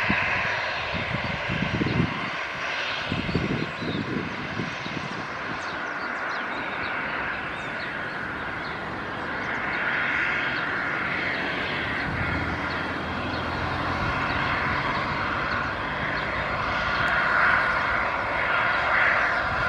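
Airbus A320 jet engines running at low taxi power as the airliner rolls slowly along the runway: a steady jet whine that swells twice. A couple of short low rumbles come a few seconds in.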